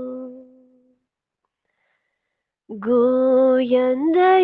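A singer of a Persian-language devotional song (munojot) holds a long note that fades out within the first second. After about two seconds of silence, the voice comes in with the next phrase and steps up in pitch near the end.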